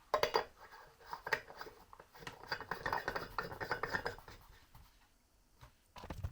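Hands handling small hard parts on a workbench: irregular clicks, taps and scraping for about four seconds, then quieter, with one knock near the end.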